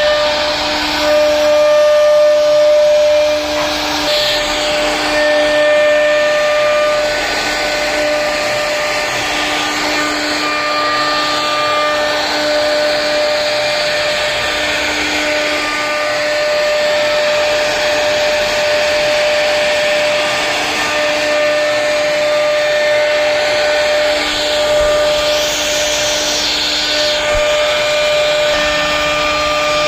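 CNC router spindle carving wood: a steady high whine over the hiss of the bit cutting, with a lower tone that comes and goes.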